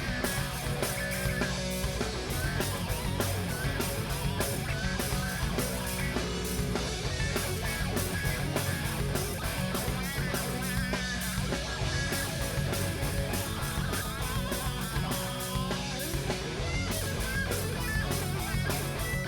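Live rock band playing an instrumental passage without vocals: electric guitars, bass guitar and a steady drum beat.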